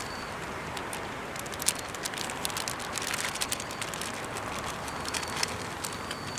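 Outdoor ambience: a steady hiss with many scattered light clicks and rustles, and a brief high tone near the end.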